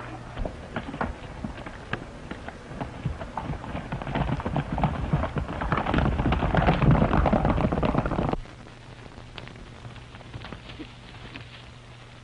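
Hoofbeats of several galloping horses, a dense clatter that grows louder and then cuts off suddenly about eight seconds in. A steady hum and hiss of an old film soundtrack remain after the cut.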